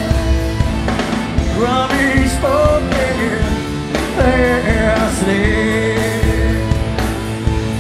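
Live rock band playing with electric guitars, bass and drums. Over it, the singer holds wordless sliding notes into the microphone between about one and a half and six seconds in.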